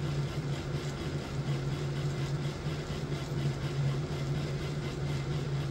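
Lionel O-scale GE U-33C diesel locomotive running under power on the test track: a steady low hum over an even rushing mechanical noise from its motors and geared trucks.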